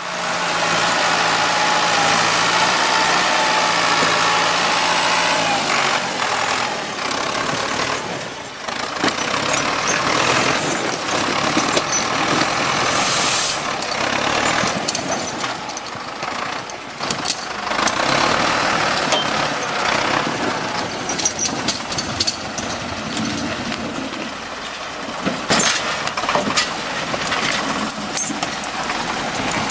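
Heavy vehicle's engine running under load, steady for the first few seconds, then mixed with repeated knocks and clatter.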